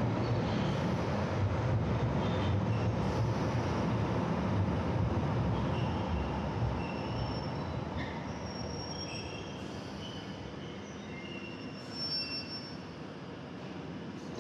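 Train running on rails, with a steady low rumble that eases off about halfway through. Thin high-pitched wheel squeals come and go in the second half.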